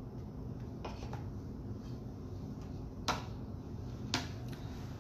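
A few short, sharp clicks and taps over a steady low hum, the two clearest about three and four seconds in.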